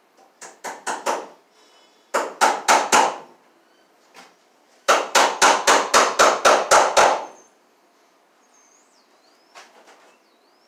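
Hammer rapidly tapping staples into a wooden post to fasten electrical cable: three bursts of quick strikes, about four a second, the last and longest about nine strikes.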